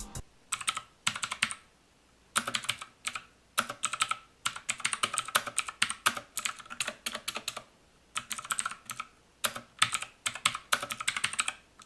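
Typing on a mechanical keyboard with clicky blue switches: fast, irregular runs of sharp clicks with brief pauses between bursts of words.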